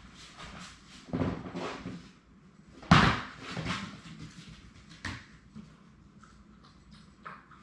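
A clear plastic tub knocked about on a hard floor by Labrador puppies. It rattles and scrapes, gives one sharp bang about three seconds in, and a smaller knock about two seconds later.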